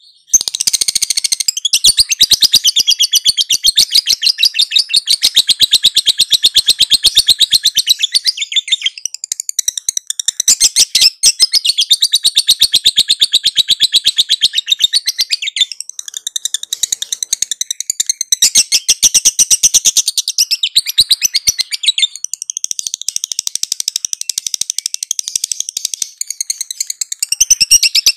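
Lovebird's long 'ngekek' song: a loud, rapid, high-pitched rattling chatter that runs on almost unbroken for many seconds, with a few short pauses.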